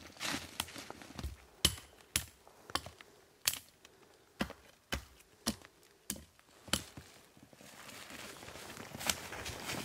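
Hatchet chopping into the base of a small conifer trunk: about nine sharp strikes, roughly one every half second to second, followed near the end by a rustle of branches.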